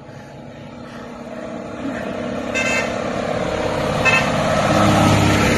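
A large truck approaching and passing, its engine and tyre noise getting steadily louder, with two short horn toots, one about two and a half seconds in and one about four seconds in.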